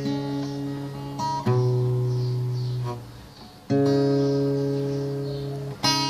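Acoustic guitar playing an instrumental intro: chords strummed and left to ring. A new chord is struck about a second and a half in, again just past the middle after a brief quiet dip, and once more near the end.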